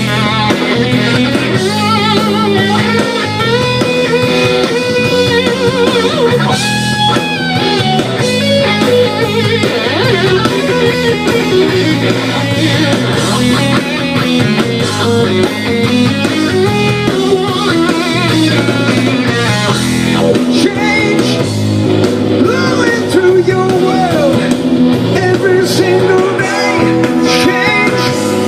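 Live rock band playing a song, guitar prominent over drums, with some singing.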